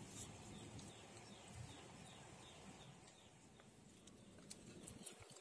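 Near silence: faint outdoor ambience with soft, high, falling chirps repeating about twice a second.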